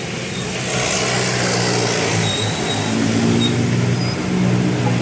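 A heavy road vehicle's engine running close by as traffic passes. A rush of tyre and air noise swells about a second in, and a steady engine drone grows stronger over the last two seconds.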